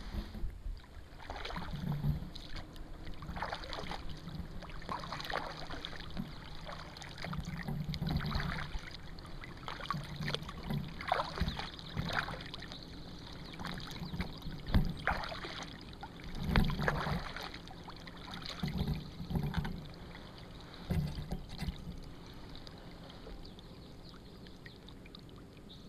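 Kayak paddle strokes: blades dipping and pulling through lake water with splashes, drips and the odd knock, coming irregularly every second or two. The strokes thin out and grow quieter over the last few seconds.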